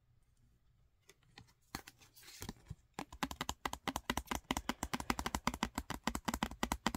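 Long fingernails tapping rapidly on a stiff paper card, about eight to ten taps a second, starting about three seconds in. Just before the tapping, a short rustle as the card is turned over.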